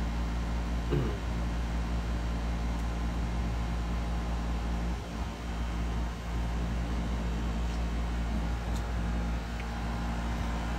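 Steady low mechanical hum of the room, with a brief faint voice-like sound about a second in.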